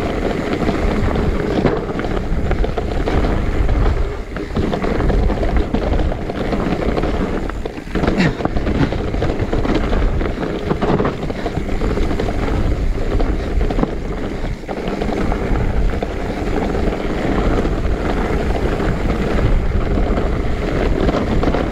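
Wind buffeting the microphone and a mountain bike's tyres and frame rattling over a rough, rocky downhill trail. There is a steady rumble with a few sharper knocks, the clearest about eight seconds in.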